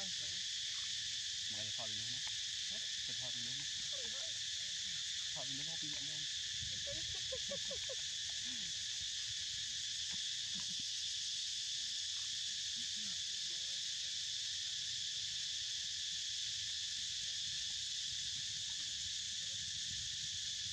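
Steady, high-pitched insect chorus droning without a break, with faint chatter beneath it during the first several seconds.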